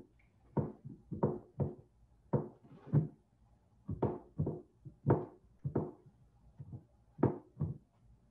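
Soft, irregular knocks and thumps, about one or two a second, as hands fold and press pie-crust dough around the rim of a glass pie plate on a countertop.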